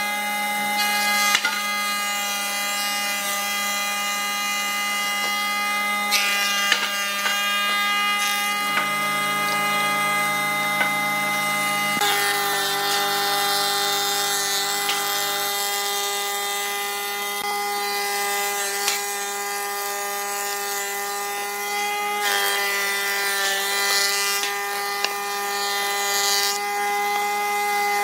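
Thickness planer running with a board feeding through it: a steady motor whine over the hiss of the cutterhead shaving the wood, with a few brief knocks.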